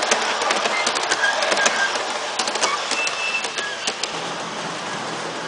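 MTH G-scale model passenger train rolling past on its track, wheels clicking rapidly over the rail joints with a steady rolling noise and a few brief squeaks. The sound eases off as the train moves away around the curve.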